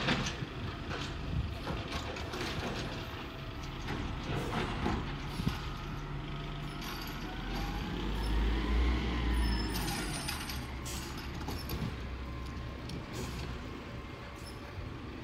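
Crane Carrier cab-over garbage truck with a Wayne Curbtender body, heard at a distance, its diesel engine running steadily. There is a sharp knock right at the start, and a few lighter knocks later. About halfway through, the engine revs up with a rising whine and then settles back down.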